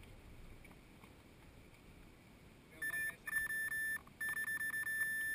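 Electronic beeper sounding a high-pitched, pulsing beep. It starts about three seconds in, cuts out briefly twice, then keeps going.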